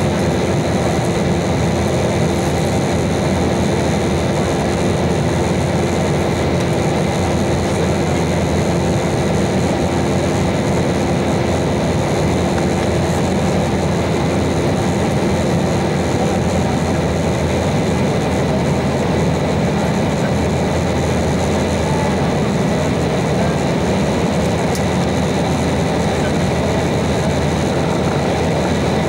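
Steady cabin noise of an Embraer 190 airliner in flight, seated over the wing: the hiss of rushing air and the even drone of its CF34 turbofan engines, climbing through cloud. A faint steady hum in the drone fades out about two-thirds of the way through.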